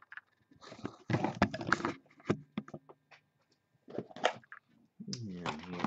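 Handling noise from a sealed cardboard trading-card box being picked up and moved: rustling and scraping followed by a few sharp clicks and taps. A man's voice starts near the end.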